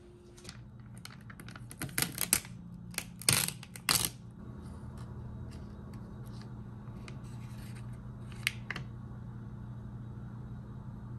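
Kitchen handling noise: a quick cluster of sharp clicks and knocks from utensils and dishes about two to four seconds in, and one more click later, over a steady low hum.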